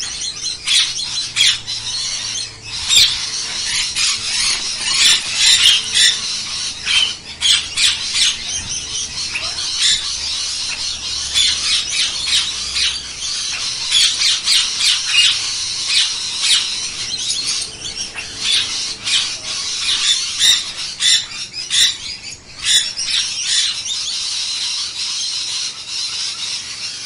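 Slaty-headed parakeets calling at a water bath: a busy, continuous stream of short, shrill squawks and chirps.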